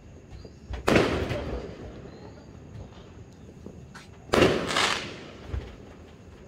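Two aerial firework shells bursting, about a second in and again about four seconds later, each a sudden bang trailing off over about a second, with a few faint distant pops in between.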